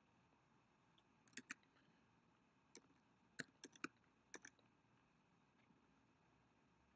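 Faint clicks of a computer keyboard and mouse: about nine short, quick presses, some in pairs and a run of three, between about one and four and a half seconds in, over near silence.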